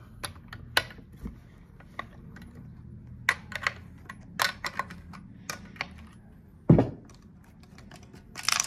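Scattered small metal clicks and clinks of a wrench working the bar nuts off a Stihl chainsaw's side cover, with one dull thump about two-thirds through and a brief scrape near the end.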